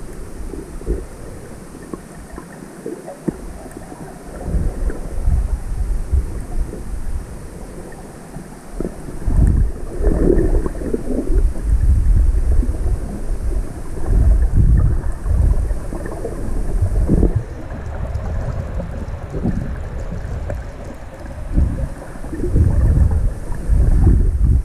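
Muffled sloshing and surging of shallow seawater heard through an underwater camera's housing: low, uneven swells of noise that grow louder about a third of the way in.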